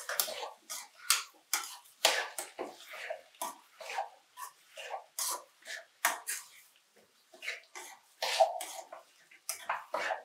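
Metal spatula scraping and stirring chopped onions and tomatoes in an aluminium kadai while they sauté, an irregular run of scrapes and clinks against the pan, several a second.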